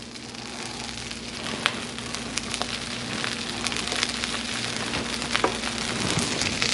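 Cold cooked rice frying in hot avocado and sesame oil on an electric griddle: a steady sizzle with scattered crackles and pops. It grows gradually louder as more rice goes onto the hot surface.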